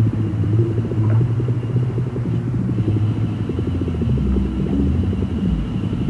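Eurorack modular synthesizer drone meant to evoke the deep ocean: a deep rumbling tone under a fast, even pulsing flutter, with slow tones sliding up and down. About four seconds in, the drone drops lower.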